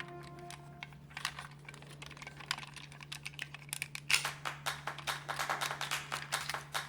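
Hard plastic toy parts clicking and snapping as a transforming robot car toy is handled and fitted together: a run of small clicks, sparse at first and quicker and louder from about four seconds in, over a faint steady hum.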